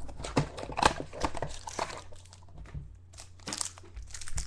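Football trading-card packs and cards being handled: a run of crinkles and clicks from the foil wrappers and card stock, busier in the first half, over a low steady electrical hum.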